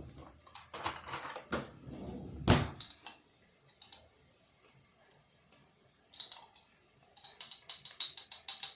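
Metal spoon clinking against a container and the pan as garlic is spooned in: a few sharp clinks in the first three seconds, the loudest about two and a half seconds in, then a quick run of light ticks near the end.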